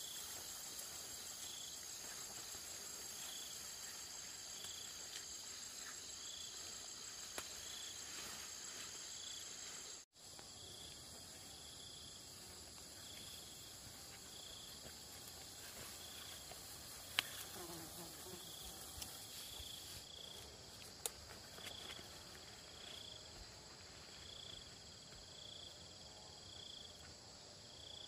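Insects chirping and trilling steadily in a high chorus, with a short chirp repeating about once a second. The sound cuts out for an instant about ten seconds in, and a few faint clicks are heard.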